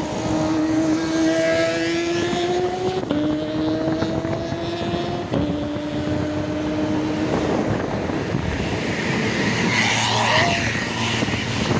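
Motorcycle engine accelerating through the gears. Its note climbs, drops at a shift about three seconds in and again about two seconds later, then gives way to a rush of road and wind noise.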